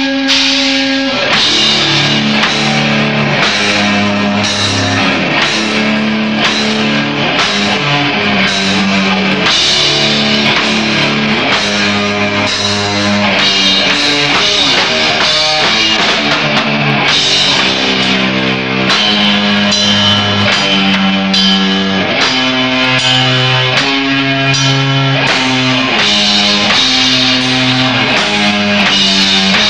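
A death metal band playing loud in rehearsal: distorted electric guitars and bass play a riff of low held notes that change every half second to a second, over a pounding drum kit and cymbals. A held note at the start breaks into the riff about a second in.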